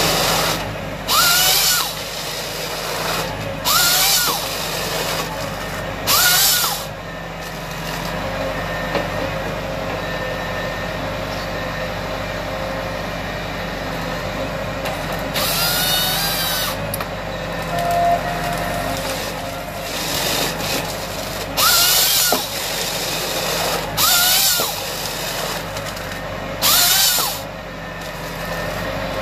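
Tractor diesel engine running steadily while driving the Nisula 425C harvester head through its hydraulics, with the head's chain saw cross-cutting the stem into logs seven times. Each cut is a loud, brief whine that rises and falls, about a second or less, with one longer cut about halfway through.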